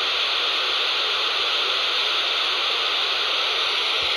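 Steady FM radio static hiss from a handheld scanner's speaker while it sits on 26.995 MHz between voice transmissions.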